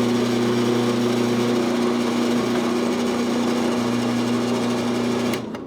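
Drill press running steadily with a hole saw in the chuck, its motor giving an even hum, until it is switched off near the end. The hole saw has already cut through the wood.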